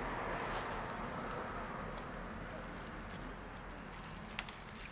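Steady outdoor background hiss, fading slightly, with one sharp click about four seconds in.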